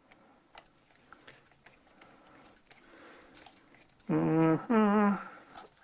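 Faint clicks and scrapes of hand tools working wires off an electrical outlet. About four seconds in, a dog gives two short, loud barks.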